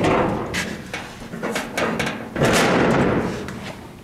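Steel tailgate of a 1970 International Harvester pickup being swung and slammed shut, with several metal clanks and rattles. The loudest bang comes about two and a half seconds in and rings on briefly.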